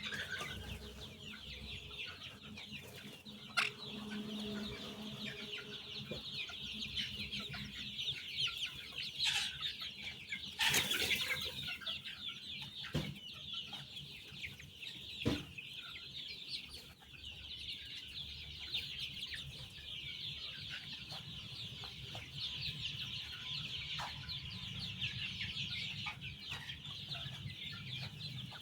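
A large flock of young chicks peeping continuously, many high calls overlapping into a steady chatter, with a few sharp knocks and a low steady hum beneath.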